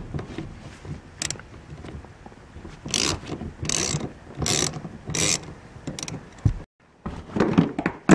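Socket ratchet clicking in four back-and-forth strokes about 0.7 s apart, loosening a 10 mm bolt, with softer handling noise before and after.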